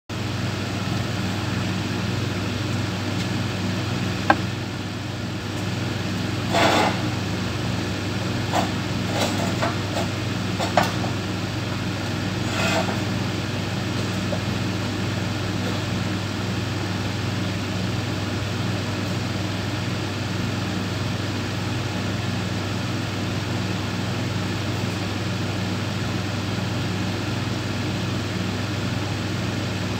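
Steady hum of a running machine motor, with a handful of sharp clicks and knocks about 4 to 13 seconds in.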